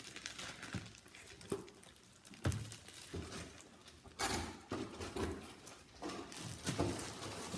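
Packaging being handled as a Chromebook is taken out of its box: scattered knocks and clicks, with a burst of rustling plastic wrap about four seconds in.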